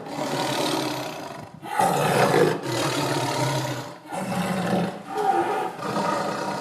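Tiger roaring: a run of long, loud roars with brief breaks between them.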